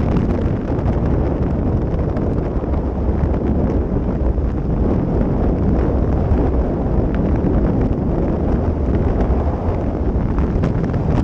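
Heavy wind buffeting on a helmet-mounted microphone while riding a motorcycle along a gravel road, a steady low rumble with the engine and tyre noise buried underneath and a few faint ticks.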